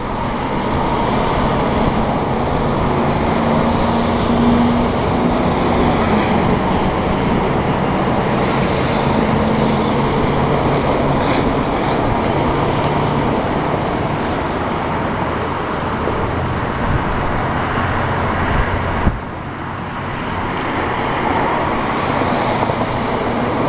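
Road traffic noise from vehicles passing close by: a steady rush of tyre and engine noise with a low hum. It dips briefly about four-fifths of the way through, then swells again as more vehicles pass.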